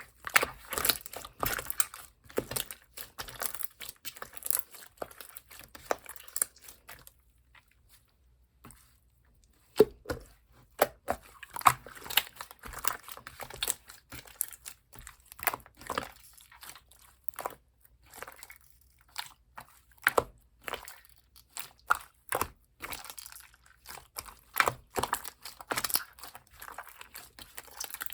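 Slime being pressed, stretched and squished by hand: quick runs of sticky clicks and crackles, with a pause of about three seconds a quarter of the way in.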